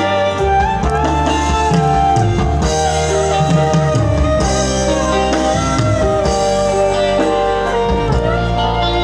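Dangdut band playing live through a large line-array PA system, heard loud from the crowd: guitar and drums under a sliding melodic lead line.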